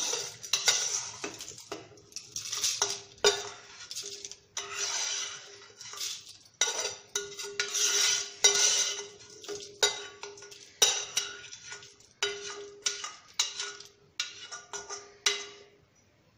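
Steel spoon scraping and knocking against a stainless-steel pan as the oil tempering of fried dal and curry leaves is scraped out into a steel bowl of ground masala: a long irregular run of metallic scrapes and clinks, the pan ringing after each knock, stopping about a second before the end.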